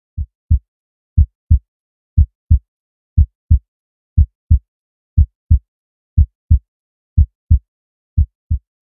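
Heartbeat sound effect: nine pairs of deep lub-dub thumps, about one pair a second, evenly spaced.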